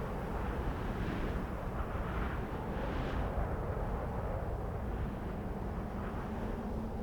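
Cold wind blowing steadily with a deep rumble, swelling in gusts that rise in pitch about a second, two seconds and three seconds in.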